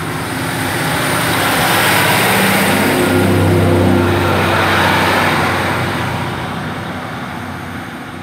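Class 150 Sprinter diesel multiple unit pulling away from the platform, its underfloor diesel engines running under power with a low steady note. The sound swells to its loudest about three to four seconds in as the train goes past, then fades.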